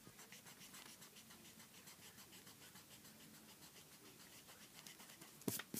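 Faint scratching of handwriting on paper, in short irregular strokes. A sudden knock near the end is the loudest sound.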